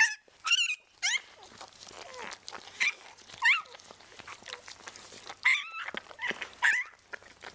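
Newborn vizsla–rottweiler mix puppy squealing in a string of short, high-pitched cries that rise and fall. The squealing helps clear birth fluid from its airways.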